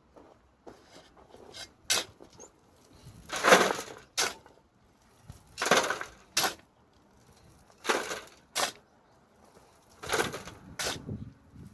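Shovel digging soil, one scoop about every two seconds, four in all. Each scoop is a gritty scrape as the blade drives into the soil, followed about half a second later by a short sharp knock.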